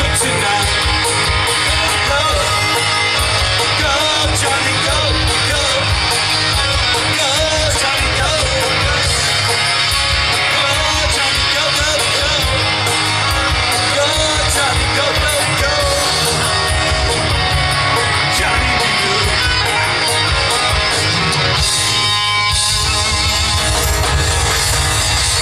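Live rockabilly band playing loud, with electric guitar to the fore over a steady drum and bass beat; the arrangement changes about 22 seconds in.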